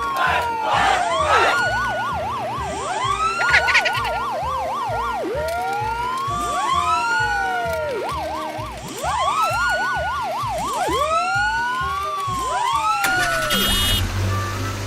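Several emergency-vehicle sirens sounding at once: slow rising-and-falling wails, rapid yelps and short swooping whoops, over a steady low beat. About thirteen seconds in the sirens stop and only the music goes on.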